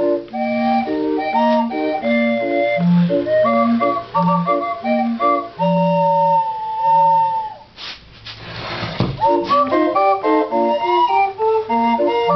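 A hand-cranked 20-pipe wooden street organ playing a tune in flute-like tones. About seven seconds in, a held note sags in pitch. Just after, there is a brief rush of noise and a drop in loudness before the melody picks up again.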